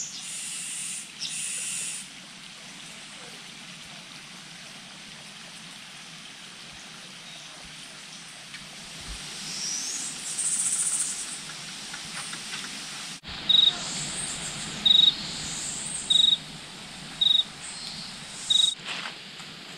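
Tropical rainforest ambience: a steady high hiss of insects. After a cut about two-thirds of the way in, five short high chirps repeat about a second apart.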